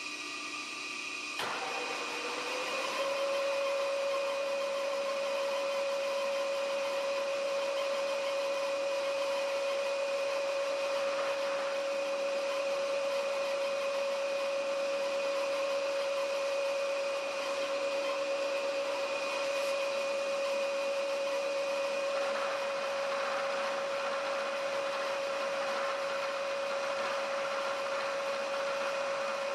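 Milling machine spindle with a four-flute end mill starting up about a second and a half in, its whine rising briefly and settling into a steady running tone.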